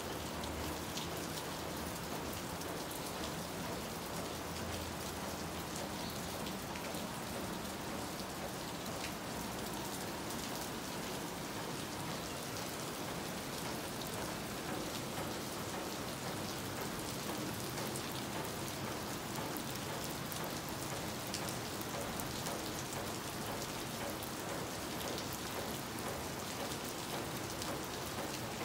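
Steady rain falling, an even hiss dotted with many small drop ticks.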